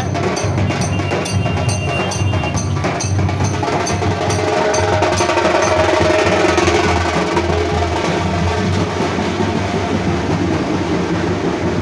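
Street band's large dhol drums beaten in a fast, driving rhythm.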